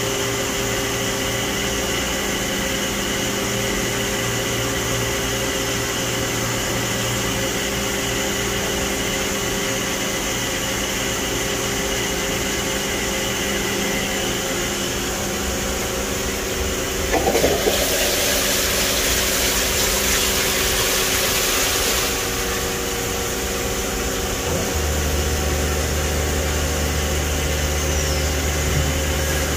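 Matsuura ES-450 CNC vertical machining center running with a steady mechanical hum and several held tones. A hiss cuts in past the middle and lasts about five seconds. Near the end a deeper, louder hum sets in and holds.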